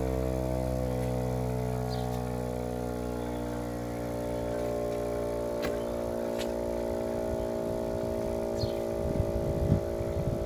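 Small electric air compressor running steadily as it pumps up a bicycle tyre through its hose. A few clicks and some low knocks come near the end.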